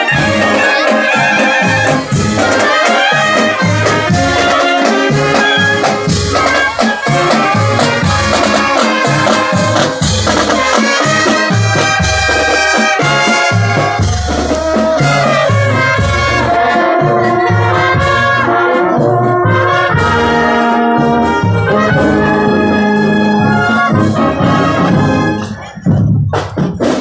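Marching band playing: trumpets and trombones carry the tune over a steady low beat, with a brief drop in level near the end.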